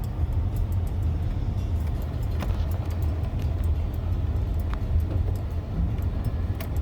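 Steady low rumble of a car driving, heard from inside the cabin, with scattered faint light clicks and rattles.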